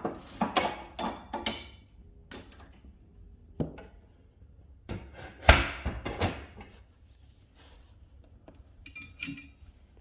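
Irregular knocks and clatters of hard objects being handled, with some ringing. A cluster comes in the first second and a half, the sharpest and loudest knock about five and a half seconds in, and a few lighter ones near the end.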